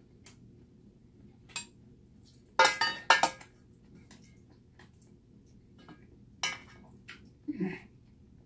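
Metal spoon clinking and scraping in a thin metal pot while food is scooped out: a few sharp clinks with a short ring, the loudest pair about three seconds in and another about six and a half seconds in.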